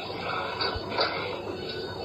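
Sped-up time-lapse room audio: garbled, fast-forwarded chatter with quick clicks and clatter, including a sharp click about halfway through.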